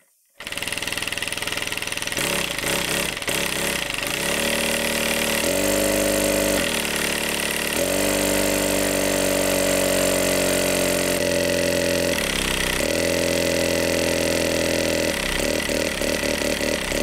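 Air-powered 3D-printed single-cylinder engine running, exhausting through an aluminium drink can fitted as a makeshift exhaust. It starts about half a second in and runs continuously, its pitch stepping up and down several times as the engine speeds up and slows down, turning to an uneven pulsing near the end.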